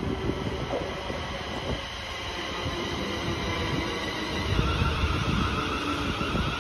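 Class 380 electric multiple unit running past on the track, with a steady rumble and hiss of wheels on rail. About four and a half seconds in, the rumble grows and a steady high whine joins it.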